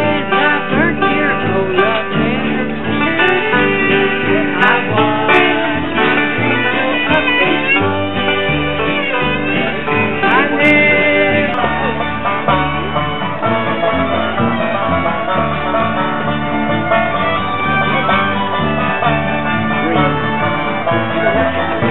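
Bluegrass-style string-band music, with guitar and banjo playing steadily.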